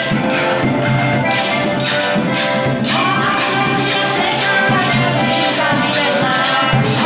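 Bahamian rake-and-scrape music: two button accordions play the tune together over the rhythmic rasp of a hand saw scraped as a percussion instrument and a goatskin drum beat.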